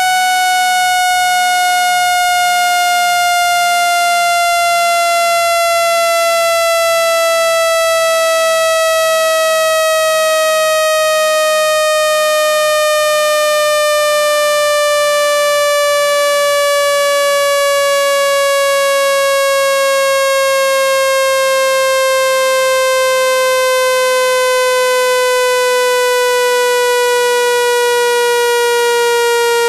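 Synthesized water-eject tone meant to shake water out of a phone speaker: one loud, buzzy electronic tone at a steady level, sliding slowly down in pitch.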